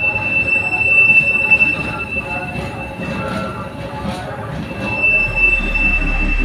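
Freight train of open wagons rolling past close by, with a rumbling run of wheels on rail and a high, steady wheel squeal. The squeal drops out around three seconds in and comes back about five seconds in. Background music comes in near the end.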